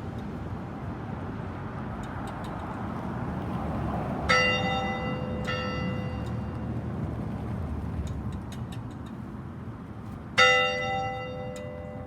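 A single church bell tolled slowly as a memorial toll. It is struck twice, about four seconds in and again near the end, and each stroke rings on and slowly fades.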